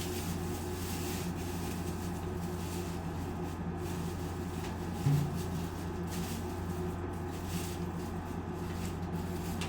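Steady low room hum with faint rustling on and off, and one short, dull low thump about five seconds in.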